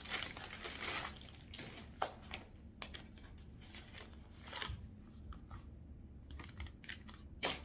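Packaging and clothes being handled, crinkling and rustling densely for the first second and a half, then in scattered light rustles, with a sharp tap about two seconds in and another near the end.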